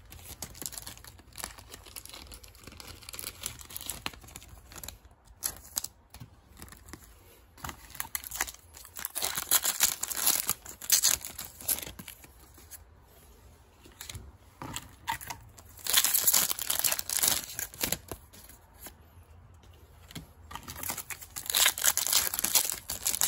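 Yu-Gi-Oh booster pack wrappers being torn open and crinkled by hand. There are three louder bursts of ripping and crinkling, with quieter rustling of packs and cards between them.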